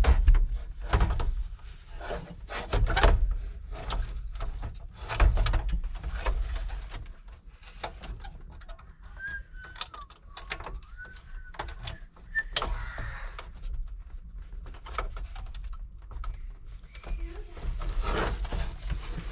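Irregular clicks, knocks and bumps of hands working plastic dash parts and a wiring connector behind the instrument cluster. A short wavering whistle-like tone comes in about halfway through.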